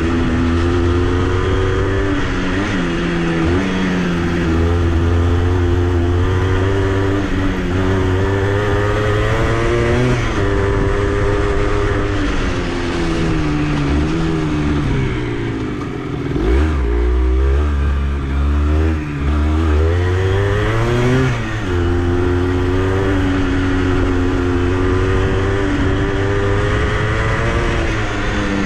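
Honda CRM80's two-stroke single-cylinder engine running under way, its revs rising and falling again and again with throttle and gear changes. About halfway through, the revs drop off briefly and then climb again.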